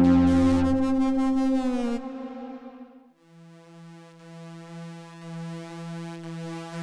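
AJH Synth MiniMod Eurorack modular synthesizer playing held notes over a bass that drops out under a second in; the sound fades away about three seconds in. A single new held note then fades in with a throbbing pulse and slowly swells.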